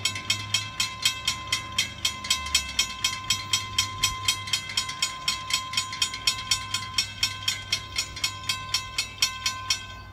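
Railroad grade-crossing warning bell ringing in a fast, even run of strikes, about four a second, as the crossing gates come down, with a low hum underneath.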